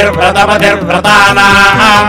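Vedic Sanskrit mantras chanted in a drawn-out melodic recitation over a steady low drone.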